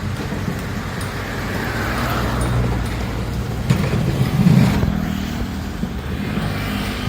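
Heavy machinery's diesel engine running with a steady low rumble that swells a little in the middle, with a couple of knocks about four seconds in.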